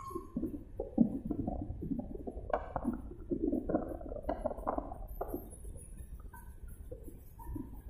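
Low wind rumble buffeting a phone microphone, with indistinct, muffled voices over it.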